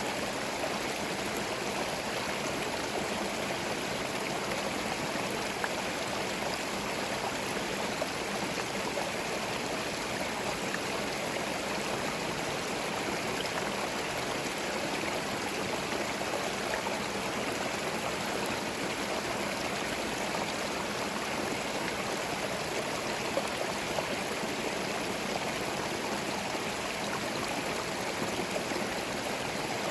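Small forest stream flowing steadily over stones, a continuous babbling and gurgling of running water.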